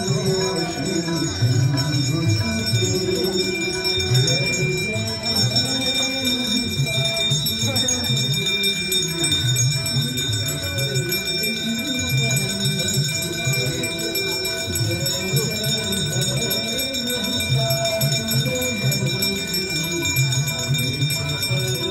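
Music with steady high ringing tones held throughout, over low voices.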